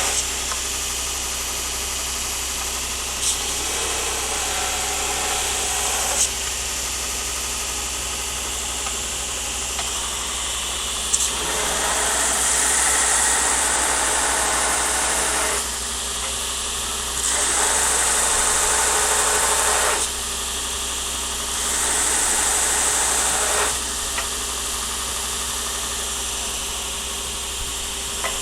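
A workshop machine runs steadily. Several times a louder hissing spell of two to four seconds rises over it, and a few sharp clicks sound in the first dozen seconds.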